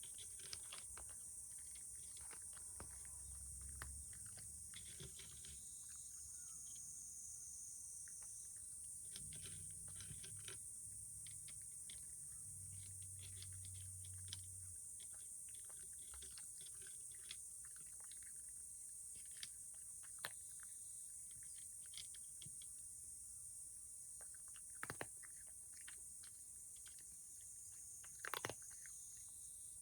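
A cat chewing its food: small, irregular crunches and clicks, a few louder ones near the end.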